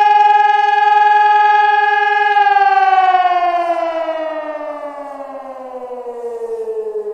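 Fire brigade alarm siren sounding a steady tone, then winding down from about two seconds in, its pitch falling steadily. It is the siren alarm calling out the volunteer fire brigade.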